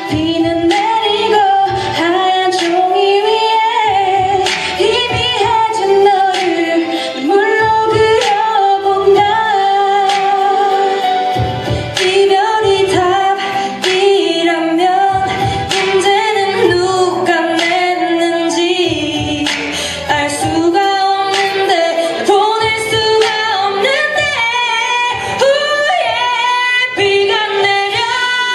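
Two women singing a song as a duet through handheld microphones, taking turns on the lead.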